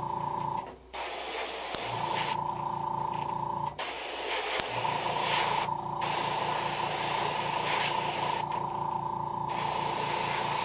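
Iwata HP-CS airbrush spraying thinned paint onto a lure in four hissing bursts of one to two seconds each, with short pauses between them. A steady hum with a tone in it runs underneath and drops out briefly a few times.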